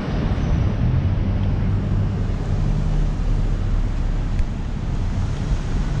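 City street traffic: cars running and passing on a multi-lane road, a steady low engine rumble with a hum that holds for a few seconds in the middle.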